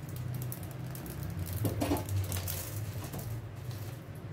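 Gas-stove burner flame running with a steady low hum, with faint crackling and a few light clicks as dried red chillies char and burn on a wire grill over it.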